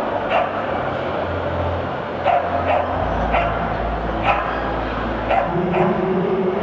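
A small dog barking in short sharp yaps, about six of them at irregular intervals, over the steady din of a large exhibition hall.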